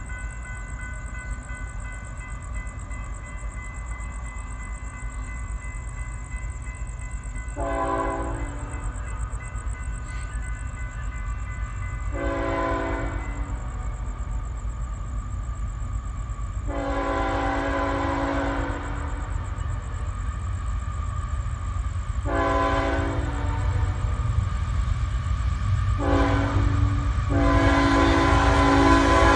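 An approaching locomotive's air horn sounds six blasts, several notes at once, spaced a few seconds apart. The last blast is held and is the loudest. Under the blasts the low rumble of the train grows as it draws near.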